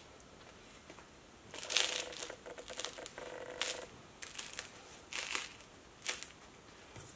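Crisp crust of a baked sourdough baguette crackling as a hand squeezes it. A run of crackles comes first, then three shorter crunches.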